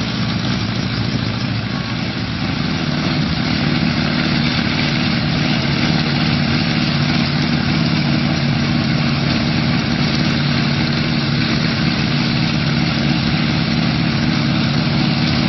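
Homemade light helicopter's engine running steadily with its main and tail rotors turning. It grows a little louder about two to three seconds in.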